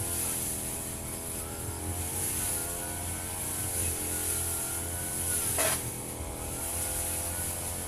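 Firman FGB 528 brush cutter running steadily at cutting speed while mowing grass, its engine note wavering slightly under load, with one brief swish of the blade through the grass about five and a half seconds in.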